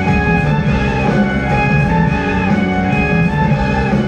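Progressive rock band playing live: electric guitars, keyboards, bass and drums, with a held, singing melody line over a busy low end.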